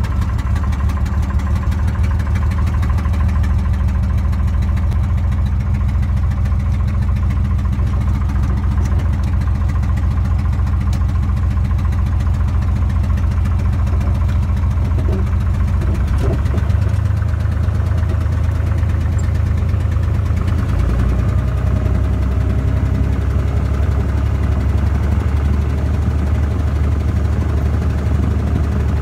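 Cessna 170B's six-cylinder Continental piston engine and propeller running at low ground power, heard from inside the cabin. The engine note shifts a little about two-thirds of the way through.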